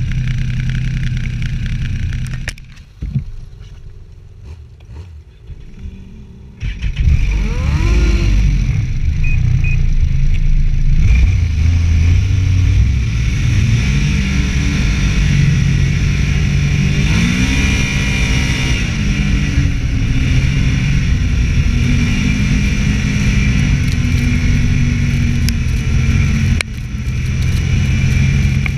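Snowmobile engine running at speed, its pitch rising and falling with the throttle. About three seconds in it drops much quieter for a few seconds, then comes back loud.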